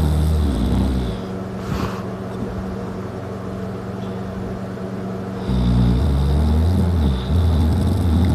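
A man snoring loudly while passed out drunk on his back: a long, low snore dies away about a second in, a quieter breath follows, and another long snore starts about five and a half seconds in.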